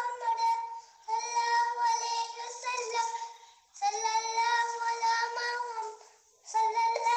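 A child singing a song in long held, high notes, in phrases of about two seconds with three short breaks between them.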